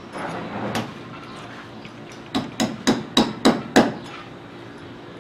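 A hammer driving a nail into a concrete wall: six sharp strikes in quick succession, about three a second, starting a little over two seconds in.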